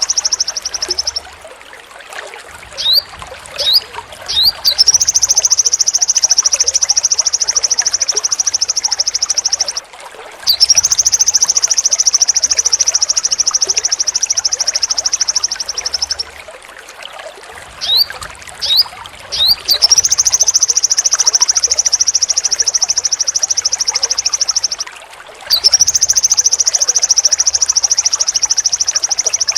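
A sogon singing long, sharp, very high rapid trills (the 'besetan'). Each trill runs for about five seconds, and there are four in all, broken by short gaps with a few quick rising chirps.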